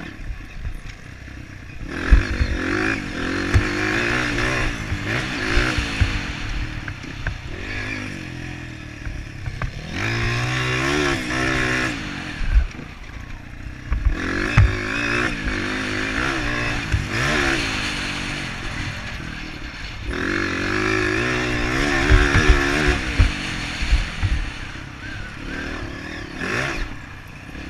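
Motocross dirt bike engine revving up and backing off over and over as the bike is ridden round the track, with rising pitch on each pull. Scattered low thumps come through the helmet-mounted microphone.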